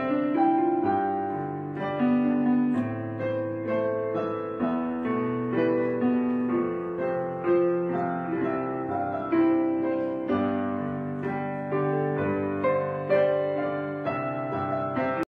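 Background piano music: a slow, even run of notes and chords.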